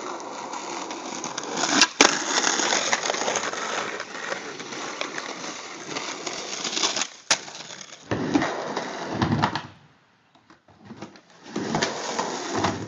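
Skateboard wheels rolling on pavement, a rough steady noise, with sharp clacks of the board, a close pair about two seconds in and one more after seven seconds. The rolling noise drops away around ten seconds in and picks up again near the end.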